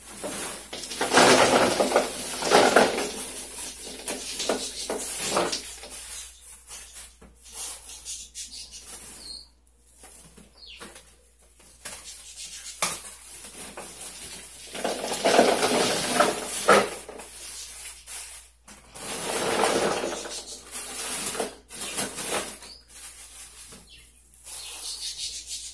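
Plastic grocery bags rustling in bursts as green tomatoes are emptied out of them into a chest freezer, with the tomatoes knocking and rolling against each other and the freezer walls.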